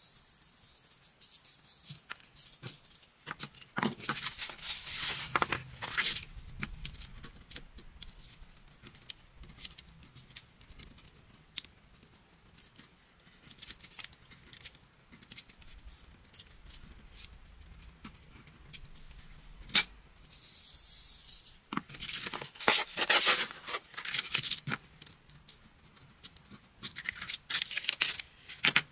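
Coloured craft sand poured from a small wooden scoop and sprinkled onto paper, hissing and rattling in bursts, with scattered ticks and scratches from a thin stick pushing the sand along the drawing.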